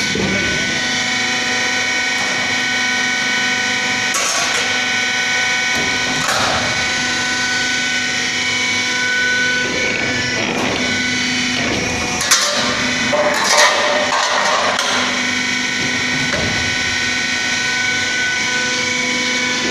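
CNC sheet-metal bending machine running with a steady whine, and a few metal clanks and knocks as steel sheet is handled and bent, the loudest about twelve seconds in.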